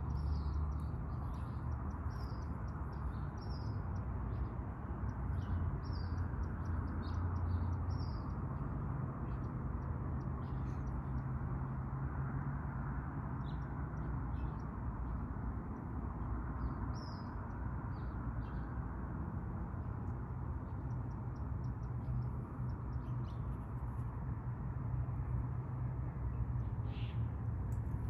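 Small birds chirping in short, repeated high notes over a steady low rumble.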